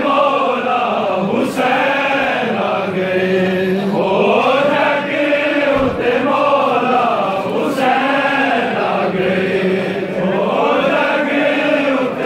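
A crowd of men chanting a Shia devotional chant together, loud and steady, in long melodic phrases that rise and fall every few seconds.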